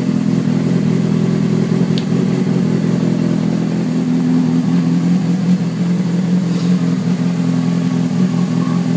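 Honda CBR600RR's inline-four engine idling steadily through a modified twin exhaust.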